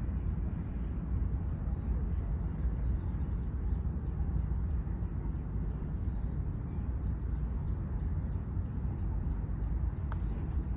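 Steady outdoor background noise: a low rumble with a constant thin high-pitched whine over it.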